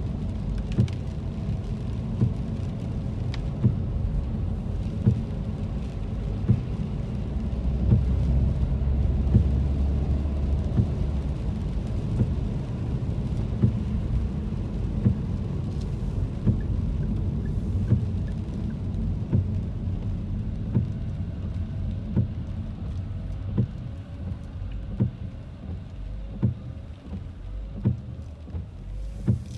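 Car cabin on a wet road: steady low road and engine rumble, with the windshield wipers sweeping and scattered sharp ticks of rain and wiper strokes. Past the midpoint the rumble eases and a regular ticking runs on, a bit more than once a second.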